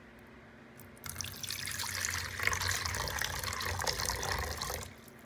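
Water poured in a thin stream into a small toy wading pool, splashing onto the water already in it as the pool fills. The pouring starts about a second in and cuts off just before the end.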